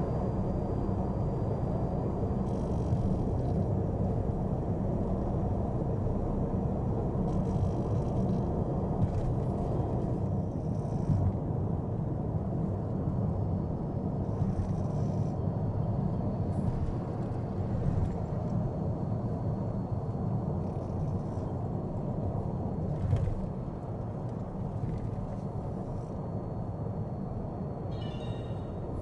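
Steady road and tyre noise inside the cabin of a Mitsubishi Outlander PHEV cruising on an expressway, with a few short hisses now and then. It turns a little quieter for the last few seconds.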